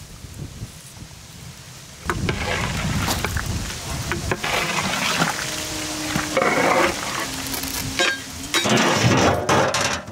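A long metal ladle stirring a thick fish gravy in a large aluminium cooking pot, scraping and knocking against the pot's sides, starting about two seconds in. Near the end a metal lid clatters onto the pot.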